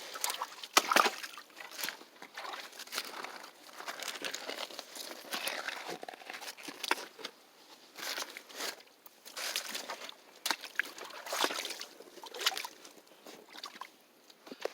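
Boots stepping and sloshing through shallow stream water, a run of irregular splashy steps.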